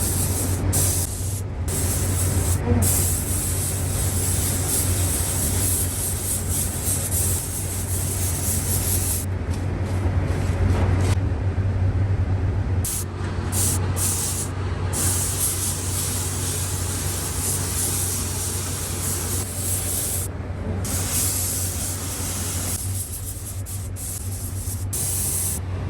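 Compressed-air paint spray gun hissing as it sprays automotive paint onto a car panel, the trigger let off briefly every few seconds. Under it runs a steady low hum in the paint booth.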